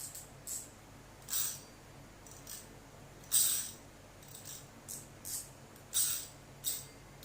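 Full-metal spinning reel being handled and worked, giving about nine short metallic rattles and clicks at uneven intervals, the loudest about three and a half and six seconds in.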